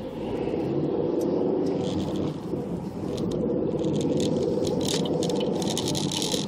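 A car's engine and road noise, heard from inside the cabin, rising as the car pulls away and then running steadily. From about halfway through, rapid rattling clicks come from inside the car.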